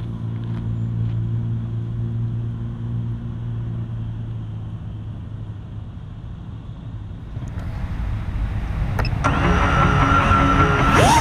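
5-inch FPV quadcopter's electric motors humming steadily at low idle, then spooling up about seven seconds in and turning into a loud whine whose pitch swings up and down near the end as throttle is applied.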